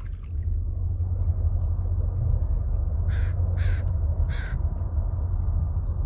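A crow cawing three times in quick succession, the calls about half a second apart, over a steady low rumble.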